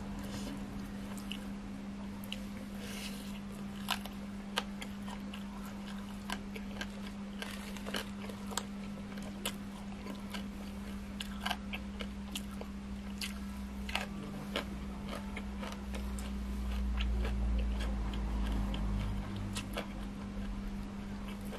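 Close-miked chewing and crunching of grilled egg-filled frog, with many small wet crunches and mouth clicks over a steady low hum. A low rumble rises for a few seconds near the end.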